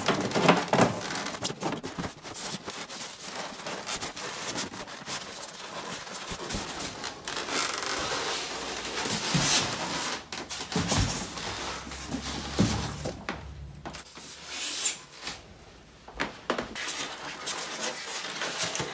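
Styrofoam packing blocks rubbing and scraping against the sides of a cardboard box as a boxed CRT monitor is worked out of it, with scattered knocks of the box and packing. The loudest moment is a sharp scrape or knock about 15 seconds in.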